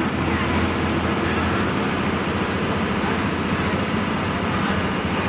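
Steady engine hum and road noise of a moving state transport bus, heard from inside its cabin.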